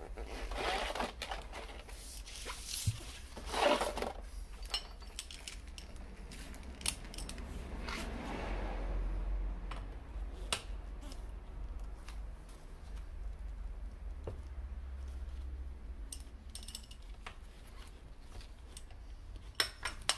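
Metal tools clinking and clicking as a socket wrench is handled and fitted to a scooter's oil drain plug, with scattered sharp clicks and a few short rustles, over a low steady hum.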